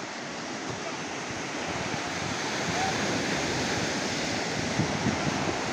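Sea surf washing on the beach: a steady rushing hiss that builds slightly in loudness.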